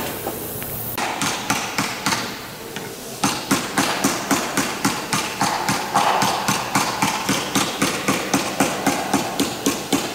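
Hand hammer blows on metal: a few spaced strikes at first, then from about three seconds in a steady run of about three blows a second.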